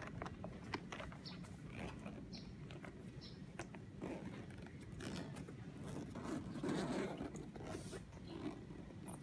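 Zipper of a padded, carbon-fibre-textured gimbal carrying case being pulled open around its edge in short scraping runs, with clicks and knocks from the case being handled. The scraping is loudest about two-thirds of the way through.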